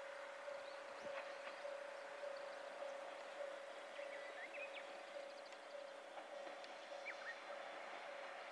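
Distant railway level-crossing alarm ringing, a single tone repeated about twice a second, with a few birds chirping.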